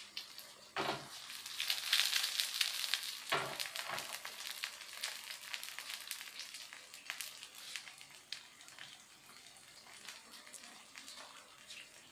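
An egg frying sunny-side up in oil with sliced spring onions and shallots in a nonstick frying pan, sizzling and crackling. The sizzle jumps up about a second in, after a soft knock, and is loudest for the next few seconds. It then eases off to a lighter crackle.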